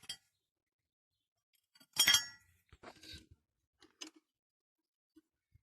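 A sharp metal-on-metal clink with a brief ring about two seconds in, followed by two lighter clinks, from steel tools and parts being handled while a puller is worked on an engine's idler-gear shaft.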